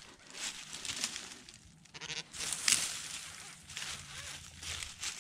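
Hand digger chopping and scraping into soil and dry leaf litter, in short crunching strokes about a second apart.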